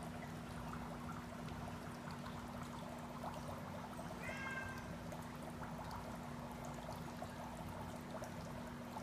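Dry ice bubbling and fizzing in a small bowl of water, a steady gurgling crackle over a low steady hum. A single short cat meow comes about four seconds in.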